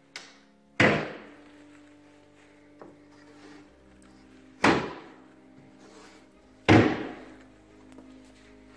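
Three loud, sharp thumps a few seconds apart, each dying away over about half a second, with a fainter knock just before the first. Faint background music plays underneath.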